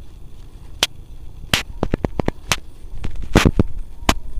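Irregular sharp clicks and short crackling pops, spaced unevenly, with a close cluster about three seconds in, over a low rumble.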